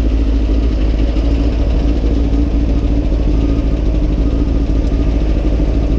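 Honda CB600F Hornet's 600 cc inline-four engine running at steady revs, a constant hum over low rumble, with no revving.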